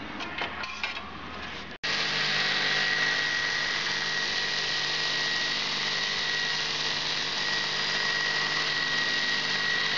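Stationary belt sander running steadily, with a high whine over its rushing noise, the edge of a white panel held against the moving belt. It cuts in abruptly about two seconds in, after quiet handling noise.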